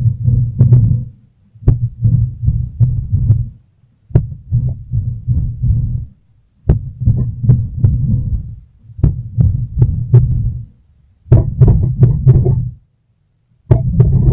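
Reconstructed Tarbosaurus closed-mouth vocalization: bird calls slowed far down into deep, pulsing booms. A series of calls, each a second or two long, with short gaps between them.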